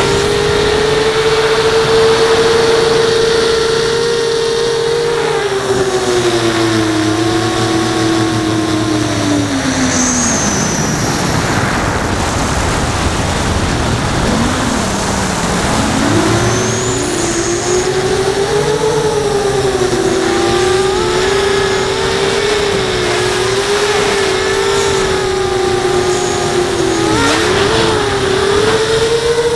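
Brushless motors and 5-inch propellers of an FPV quadcopter whining steadily, heard from a camera mounted on the frame with wind rush. The pitch sags when the throttle comes off, drops low for a few seconds in the middle, then climbs back and holds with small wobbles as the throttle is worked.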